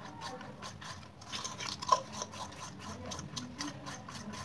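Cake batter being beaten by hand with a utensil in a steel bowl: quick, even scraping strokes, several a second, with one sharp clink of the utensil against the bowl about two seconds in.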